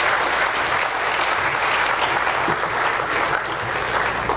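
Audience applauding steadily, a large room full of clapping hands welcoming a speaker to the podium.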